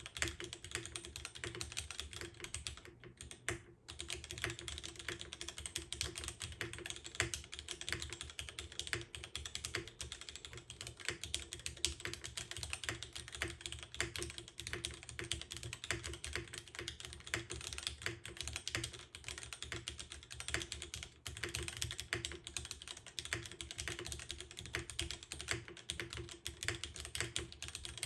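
Continuous typing on a JJW Cloudline mechanical keyboard: lubed and filmed Cherry Vintage Black switches on an aluminium plate, dual-mounted with no foam, under OG SP DCS-profile keycaps, giving a thin, sharp, crisp keystroke sound. Dense, steady keystrokes with a short pause about three seconds in and a brief lull near twenty-one seconds.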